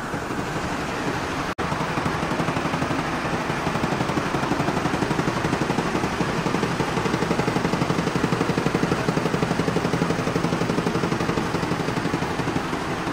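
Cotton mill machinery running with a loud, fast, even clatter over a dense mechanical din, after a sudden momentary break about a second and a half in.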